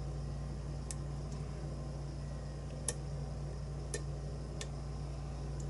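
Small, sharp metallic clicks of a lock pick working the pin stack of a challenge lock cylinder, about five irregularly spaced ticks, over a steady low hum.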